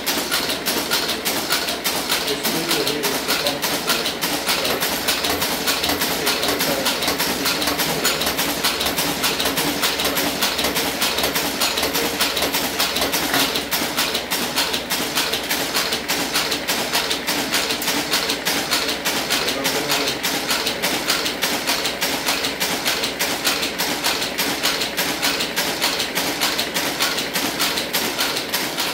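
Monotype composition caster running with a rapid, even mechanical clatter as it casts lead type one character at a time from a punched paper ribbon.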